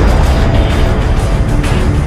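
Loud cinematic soundtrack music with a heavy bass.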